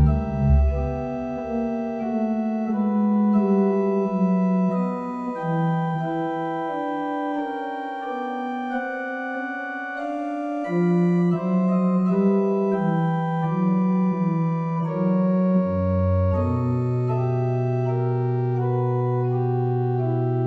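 Pipe organ playing a slow piece of held chords under a moving melody. Deep bass notes come in near the end and sustain under a long chord.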